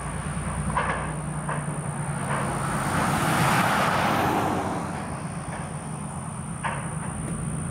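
Diesel switcher locomotive running steadily as it pulls loaded hopper cars, with a sharp wheel click over the rails now and then. A road vehicle passes close, swelling louder in the middle and fading again.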